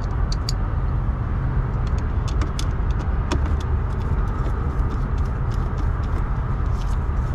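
Scattered small metallic clicks and ticks of a hand tool working the screws of a semi truck's HVAC blend-door actuator, over a steady low rumble.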